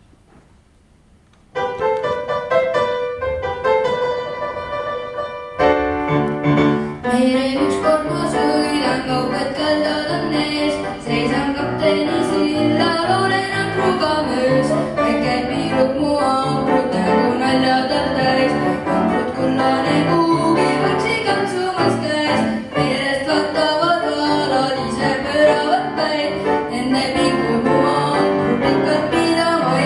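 Grand piano accompaniment starting after a short quiet, with a boy's solo singing voice joining the piano a few seconds later.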